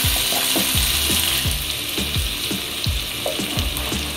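Chopped tomatoes, onions and dried red chillies sizzling in hot sesame oil in a non-stick kadai, being sautéed until the tomatoes soften, with a steady frying hiss. A wooden spatula stirs through it, giving short low strokes a few times a second.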